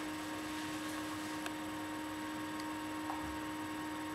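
Steady electrical hum with a faint hiss, the recording's background noise, broken by a couple of faint clicks.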